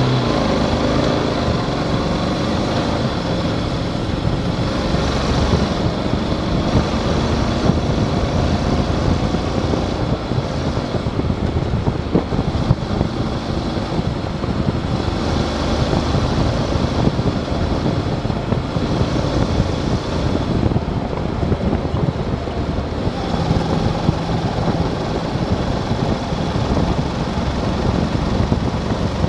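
Motorcycle engine running under way as the bike speeds up to road speed, mixed with a steady rush of wind over the microphone.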